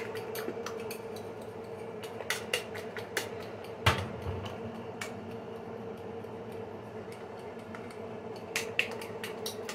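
Kitchen utensils and dishes clicking and clinking on a counter, irregular light taps with a louder knock about four seconds in, over a steady hum.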